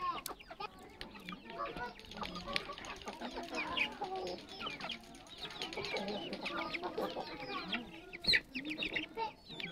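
A flock of chickens clucking and calling over one another as they forage, with many short overlapping calls. A single sharp click about eight seconds in.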